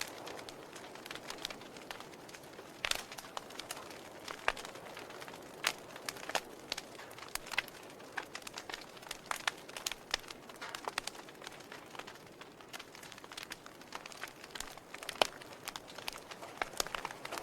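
Wood fire burning in a fireplace: irregular crackles and sharp pops over a soft steady hiss of the flames, with the loudest pop about fifteen seconds in.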